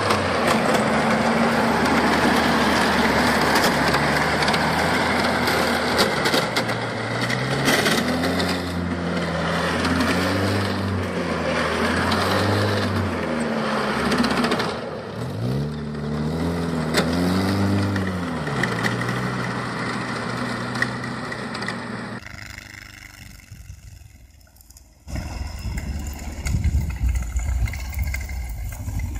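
A small orange tracked snowcat's engine runs as it drives over snow, revving up and down several times. After a quieter break near the end, a deeper engine rumble comes from a second tracked snow vehicle.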